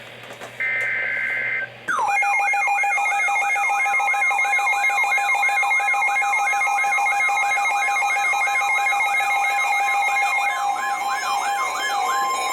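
Emergency Alert System broadcast for a severe thunderstorm warning. First comes a short two-pitch digital header burst, then from about two seconds in the loud attention tone: a steady tone with a warble sweeping up and down about two and a half times a second.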